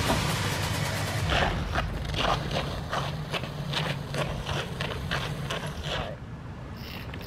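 Running footsteps, about three a second, over a low steady hum; the steps stop about six seconds in.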